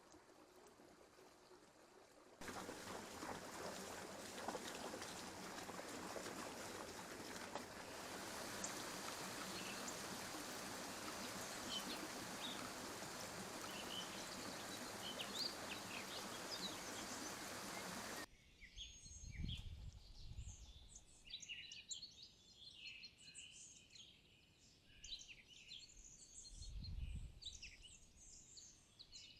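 Forest stream running steadily with faint bird chirps over it, cutting off suddenly into small songbirds chirping and calling in the woods, with two brief low thuds in the second part.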